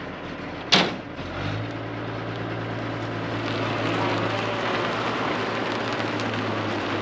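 A WWII half-track's engine running as the vehicle drives forward, a steady low drone that slowly grows louder, with one sharp clunk about a second in.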